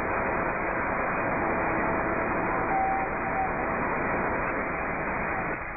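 Steady machinery noise from a foundry's automatic molding line and mold conveyor, running evenly with a faint brief tone about three seconds in. It drops off near the end.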